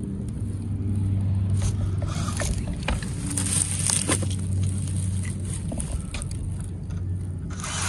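Hobby Plus CR18P Evo Pro small-scale RC rock crawler driving through dry reeds and grass, the stems scraping and crackling against its tyres and body, over a steady low hum.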